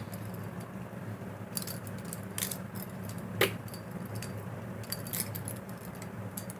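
Metallic clicks and clacks of a balisong butterfly knife, a Venom Alpha Beast clone, being handled and flipped, its handles knocking together. The clicks start about a second and a half in and come in scattered bunches, with one louder clack about halfway through. A steady low hum runs underneath.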